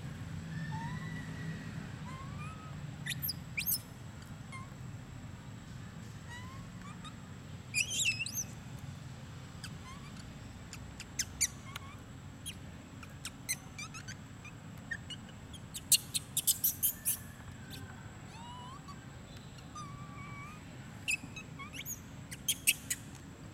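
Scattered short, high-pitched chirps and squeaks, some in quick clusters, over a low steady hum.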